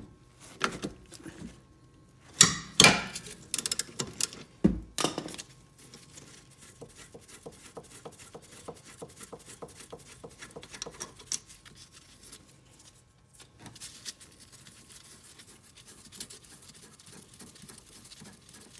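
Ratchet wrench with a 14 mm socket clicking rapidly as a brake caliper bolt is backed out, after a few sharp metal clanks and a dull knock in the first five seconds.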